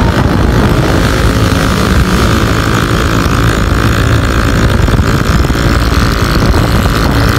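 Loud, steady wind rush over the microphone and a small engine running at speed on a moving motorcycle.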